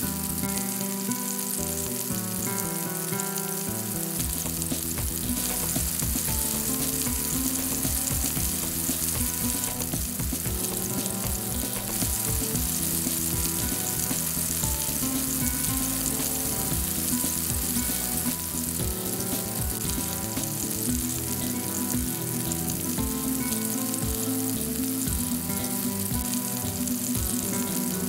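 Diced onion, bell peppers and carrots sautéing in oil in a non-stick frying pan, with a steady sizzle.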